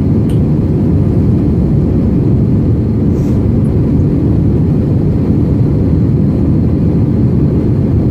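Airliner cabin noise in flight: a steady, even low rumble heard from inside the cabin.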